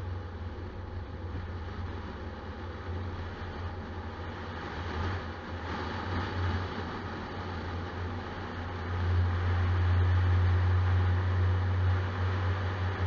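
Vehicle driving on the road, heard from an onboard camera: a steady low drone with road and wind noise, growing louder about nine seconds in.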